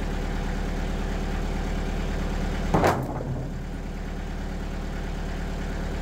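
TimberKing 2020 band sawmill's engine running steadily, not cutting. About three seconds in, a single loud thud as a sawn board is dropped off the mill.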